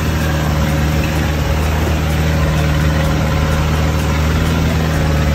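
Vehicle engine running with a steady low hum, heard from the passengers' seats in the open back of the vehicle.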